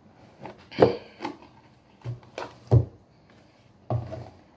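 Knocks and taps from handling a boxed card deck: the cardboard box and cards being picked up, opened and set down, about half a dozen short sharp knocks, the loudest just under a second in and near three seconds.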